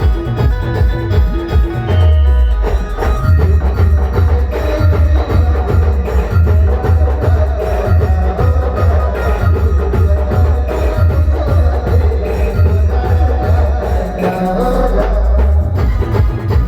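An Adivasi band playing: a steady, heavy drum beat under a melody line. The beat drops out briefly near the end and then comes back.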